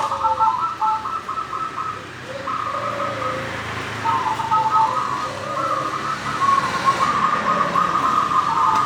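Zebra dove (perkutut) cooing: phrases of fast, rolling, stuttering notes a few seconds long, broken by short pauses, with softer lower coo notes in between.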